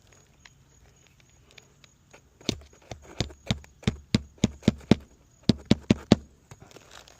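Hammer driving a roofing nail into a shingle while reinstalling it: about a dozen quick blows, roughly three a second, in two runs with a short pause between.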